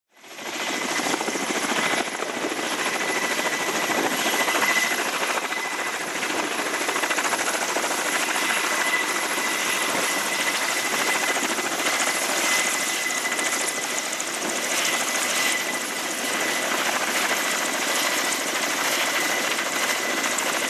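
Kamov Ka-27 Helix helicopter hovering close by, its coaxial rotors and turbine engines making a steady loud noise with a thin steady high whine through it. The sound comes in quickly from silence at the start.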